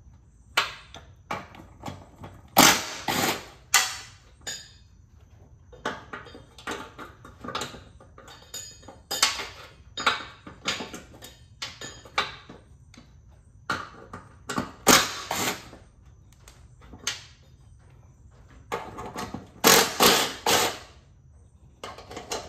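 Irregular metal clanks and knocks of hand tools working on a riding-mower deck while its pulley spindle hubs are taken out, with a few short runs of three or four harder strikes.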